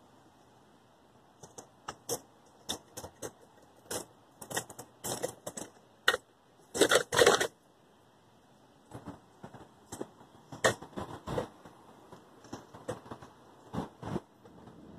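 A run of irregular sharp clicks and rattles, uneven in spacing and loudness, with the loudest cluster about seven seconds in.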